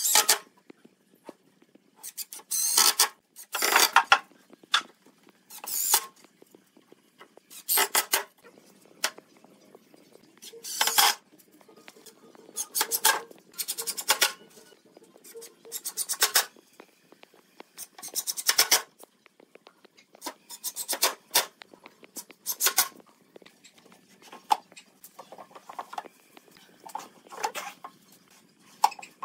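Cordless impact driver driving screws into a pine board. It comes in about a dozen short bursts of rapid clattering, each lasting about a second, with pauses between.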